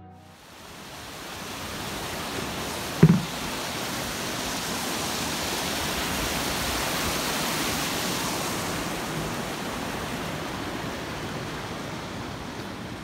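Mountain stream rushing and cascading over boulders, a steady hiss that swells toward the middle and eases near the end. One short thump about three seconds in.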